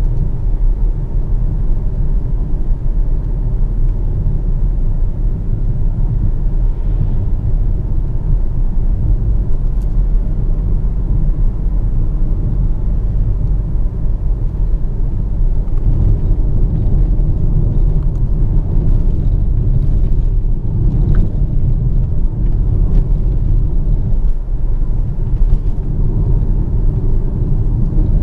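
Volvo XC40 T5 being driven: a steady low rumble of its 2.0-litre turbocharged four-cylinder petrol engine mixed with road and tyre noise.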